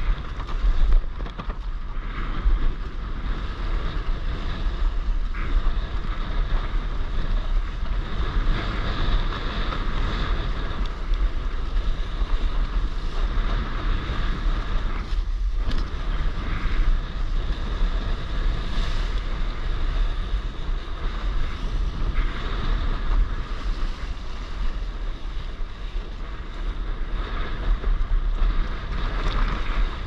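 Wind buffeting the microphone in a steady low rumble, over water rushing and splashing past the nose of a windsurf board under sail.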